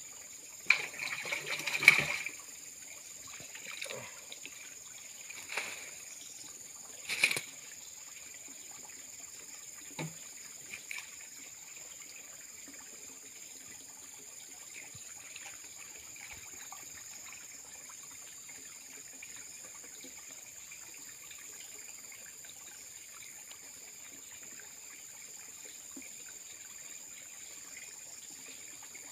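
Water splashing in a shallow muddy fish pond, loudest in a cluster of splashes about one to two seconds in, with a few single splashes over the next several seconds. After that a faint steady trickle of running water.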